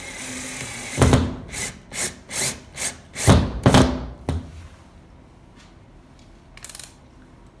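Cordless drill-driver driving small screws into a plastic plasterboard wall anchor. It runs steadily for about a second, then gives a run of loud short bursts over the next three seconds as the screws are driven home. After that it falls quiet.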